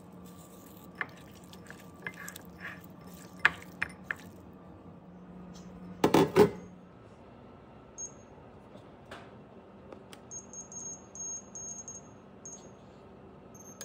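Kitchen handling sounds: light clicks and taps, then a loud clatter about six seconds in as the breaded artichoke pieces go into the air fryer basket. Later an Instant Vortex air fryer's control panel beeps in a rapid string of short high beeps as its dial is turned to set the time and temperature.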